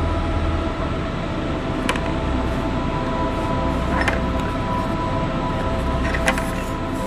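A steady hum of several held tones, with a few faint clicks about two seconds apart.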